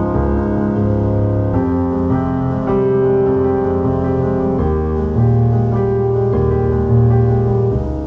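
Soft background piano music with sustained chords changing every second or so over a steady bass.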